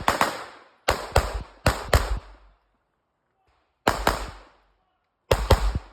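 Pistol shots fired in quick pairs of double taps, the two shots of a pair about a quarter second apart, with gaps of about one to one and a half seconds between pairs. Each shot is a sharp crack that rings briefly.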